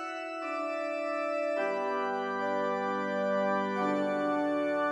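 Background music: sustained organ-like keyboard chords held for a second or two each, changing chord about three times.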